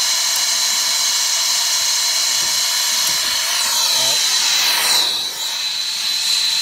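Brazing torch flame hissing steadily against a copper refrigerant line joint at an HVAC condenser's compressor, with a thin high whistle running through the hiss.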